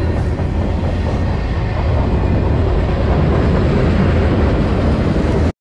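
Freight train of boxcars rolling past at close range: a steady, loud rumble of wheels on the rails that cuts off suddenly near the end.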